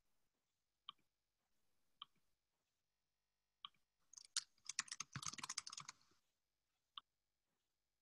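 Typing on a computer keyboard: a quick run of keystrokes lasting about two seconds, after a few single clicks spaced about a second apart and with one more click near the end.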